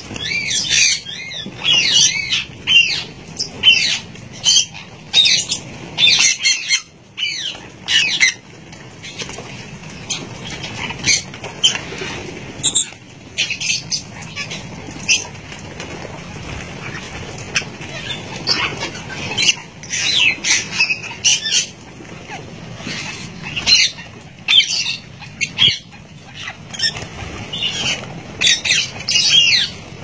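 Parrots chirping and squawking: runs of many short, shrill calls overlapping one another, with brief lulls between the runs.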